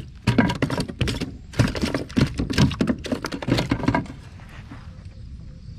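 A small bass flopping on a plastic kayak deck and measuring board: a quick run of slaps and thumps that stops about four seconds in.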